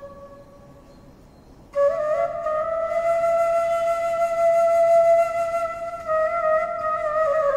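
Bamboo transverse flute: a note fades out, and after a pause of about a second and a half a long note is held, with small ornamental turns, gliding down near the end.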